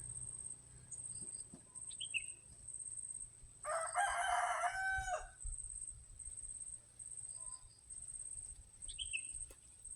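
A rooster crowing once, about four seconds in, a single crow lasting about a second and a half.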